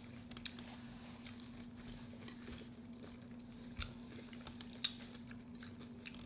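Quiet close-up chewing and small crunches of a breaded crab ball, with a couple of sharper clicks near the middle. A faint steady low hum runs underneath.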